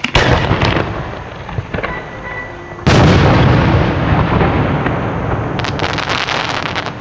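Large 10–12 inch aerial firework display shells: a sharp report at the start, then about three seconds in a much louder boom that echoes and rumbles on through the valley, the lift charge and the shell burst. A quick run of crackling comes near the end.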